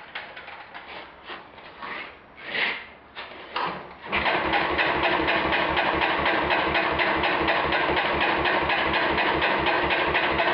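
A small garden tractor's engine is cranked over by its electric starter, in a steady even rhythm of about five beats a second that starts about four seconds in after a few quiet clicks. It turns over without catching because no fuel is reaching the carburettor with the fuel shut-off valve closed.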